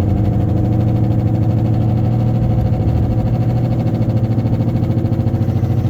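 Steady low drone inside the cabin of a Toyota Camry at about 60 mph, wobbling quickly in loudness. It is the noise and vibration that the owner is tracking down and suspects is a worn wheel bearing.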